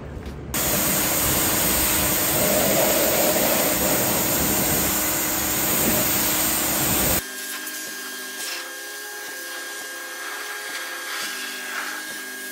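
Pressure washer rinsing the foam off a truck's aluminum wheel and tire: a loud, steady spray that starts about half a second in and cuts off abruptly at about seven seconds.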